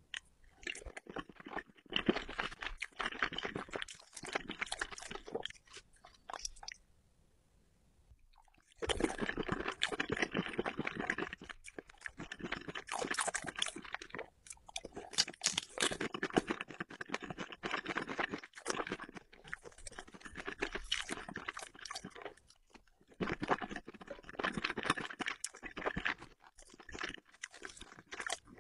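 Close-miked chewing and crunching of spicy sauce-coated seafood such as scallops and octopus, with irregular wet, clicky mouth sounds. There is a pause of about two seconds a quarter of the way in.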